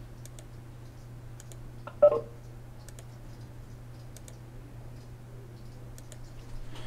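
Scattered light computer mouse clicks over a steady low hum, with one brief louder sound about two seconds in.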